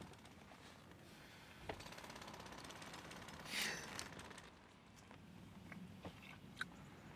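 Quiet inside a parked car: faint room tone with a few small clicks and one brief swish about three and a half seconds in.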